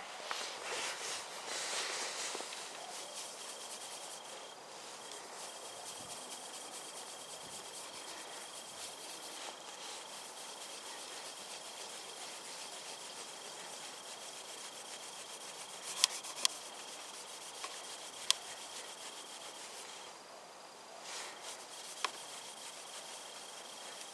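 Cloth rubbing steadily over car paint, polishing in scratch remover by hand, with a faint steady high whine behind it. A few sharp clicks come past the middle and once near the end.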